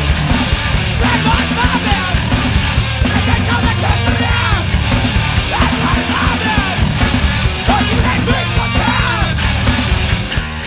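Loud, fast punk/hardcore band recording: distorted guitars, bass and busy drums with yelled vocals. Just before the end the heavy part falls away to a thinner guitar figure.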